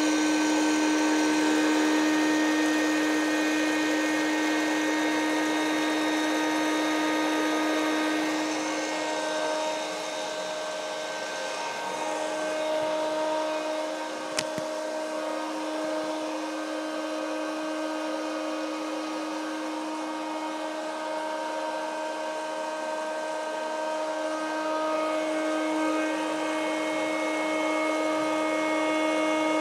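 Red Elite electric hot-air popcorn maker running while it roasts chickpeas: a steady motor hum and rush of blowing air, with one sharp click about halfway through.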